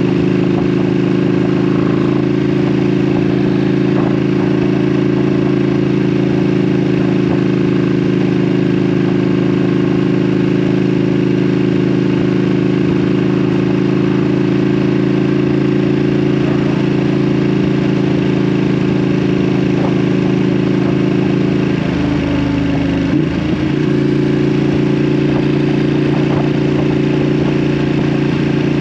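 Ducati Panigale V2's 955 cc Superquadro V-twin running at a steady pitch through an Akrapovic exhaust. Roughly three-quarters of the way through, the engine note briefly wavers and then settles at a slightly different pitch.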